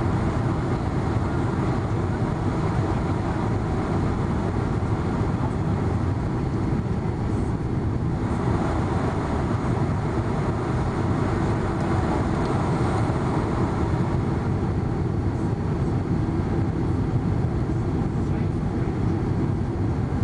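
Steady airliner cabin noise during the landing approach: a constant low rush of engines and airflow over the wing, with flaps extended, heard from inside the cabin.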